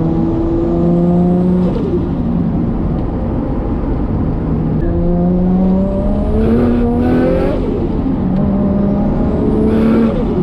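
Modified RB25DET turbocharged straight-six of an R33 Skyline accelerating hard in three pulls, each with a rising turbo whistle, cut short by a lift-off about 2, 7.5 and 10 seconds in. Each lift-off releases a short turbo flutter and screamer-pipe hiss.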